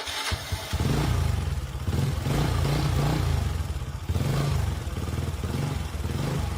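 Vintage Honda motorcycle engine running with a low, pulsing exhaust note, revved and eased off; it drops back briefly about four seconds in, then picks up again.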